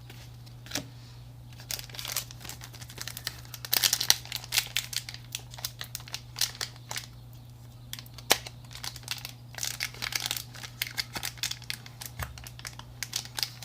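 Foil wrapper of a Pokémon trading card booster pack crinkling and tearing as it is worked open by hand, with irregular crackles that come thickest about four seconds in and again over the last few seconds; the pack is hard to open.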